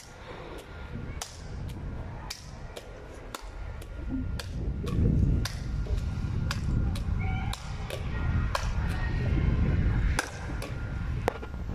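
A volleyball slapping against fingertips on repeated overhead sets, with a hand clap between touches, making a steady run of sharp smacks about two a second. A low rumble sits underneath from about four seconds in.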